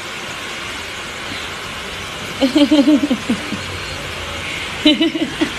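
A steady hissing noise, with a person's voice coming in briefly about halfway through and again near the end.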